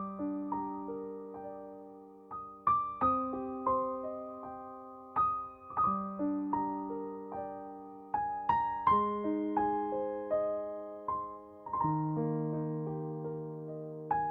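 Background piano music: soft, slow chords and single notes struck and left to ring.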